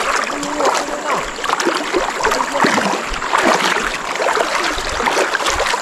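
Fast river current rushing and splashing close to the microphone, an irregular wash of water sounds.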